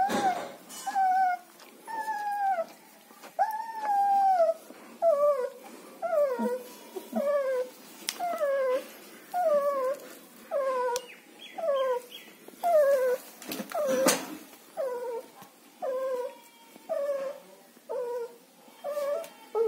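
German Shepherd puppy crying: a steady series of short whimpering cries, each falling in pitch, a little more than one a second. A sharp knock comes about fourteen seconds in.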